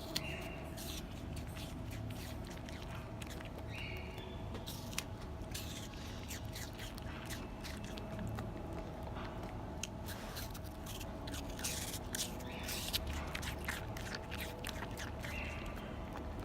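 Red panda chewing apple: a run of irregular crisp crunching clicks over a steady low hum.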